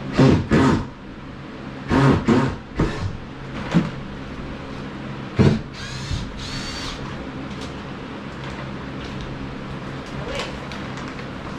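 A run of loud, short knocks and bumps, most of them in the first six seconds, over a steady low hum.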